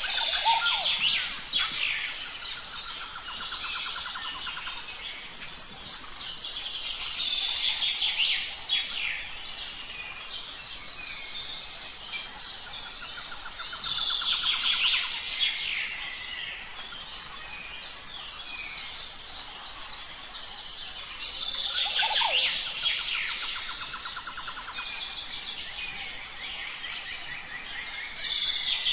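Birds chirping and singing in clusters of quick calls that swell up about every seven seconds, over a steady, high, pulsing trill.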